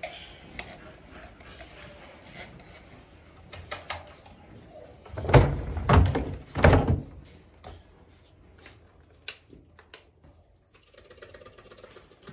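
Light clicks and clinks of dog-food cans being handled at a counter, with three heavy thumps in quick succession about halfway through.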